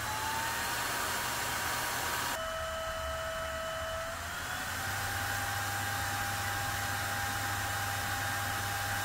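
Small high-speed blower fan of a 1U server-style CPU cooler running under benchmark load: a steady rushing whir with a whine whose pitch climbs near the start, drops suddenly about two seconds in, then climbs again as the fan speed changes.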